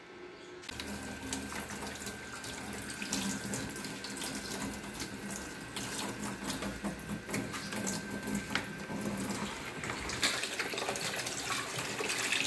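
Kitchen tap running into a basin of water while bunches of malunggay (moringa) and other leafy greens are rinsed under the stream by hand, with steady splashing and small drips.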